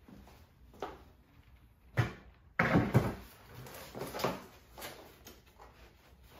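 A sheet of 3/4-inch plywood handled and laid down on a laminate floor: a sharp wooden knock about two seconds in, then a louder clatter and scrape, followed by lighter knocks as the board is set flat.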